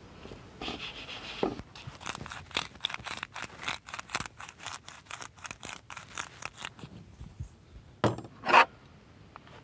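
Hand-twisted salt grinder grinding pink rock salt, a fast run of crunchy clicks, about four to five a second. Near the end the grinder is set down on the table with two knocks, the second the loudest.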